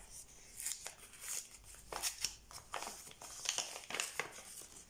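A small wrapped packet crinkling and rustling in the hands as it is unwrapped, in a string of uneven rustles.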